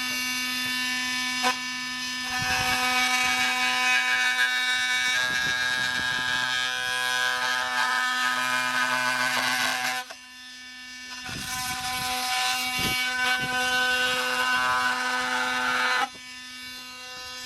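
Milwaukee M18 Fuel oscillating multi-tool running at speed setting 6 with a steady buzzing hum. Its wood blade cuts into an old 2x4 in two stretches, from about two seconds in to about ten and again from about eleven to sixteen, each adding a louder cutting noise that stops suddenly.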